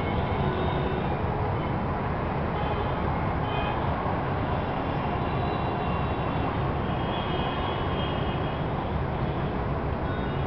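Steady din of city road traffic, many vehicles' engines and tyres running together without a break.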